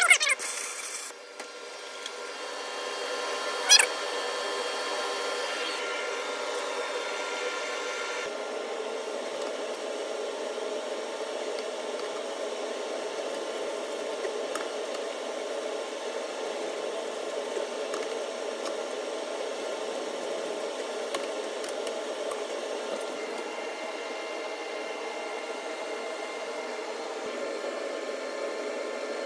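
A short blast of compressed air from a hand blow gun in the first second, then a steady mechanical hum with a few even tones for the rest of the time.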